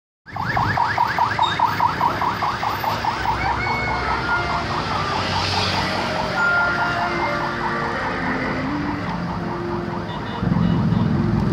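Rescue van's electronic siren on a fast yelp: rising sweeps about four a second, fading out after a few seconds over steady road-traffic noise. Near the end a louder engine sound comes in.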